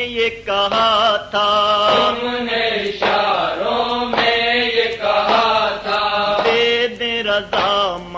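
A male voice chanting an Urdu noha in short, wavering phrases over a steady held drone.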